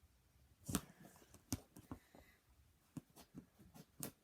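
Scattered clicks and knocks of hands gripping and twisting a slime container whose lid won't open. The clicks are irregular, a little under a second apart, with the loudest about a second in and near the end.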